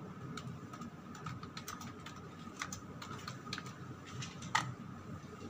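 Computer keyboard typing: irregular key clicks, with one louder click about four and a half seconds in, over a faint steady tone.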